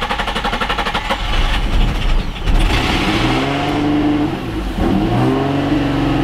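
Infiniti G35's VQ35DE V6 cranking on the starter, catching about two and a half seconds in, then revving up and down with a rising and falling pitch: the first start after a fuel pump replacement. The owner cannot explain the revving.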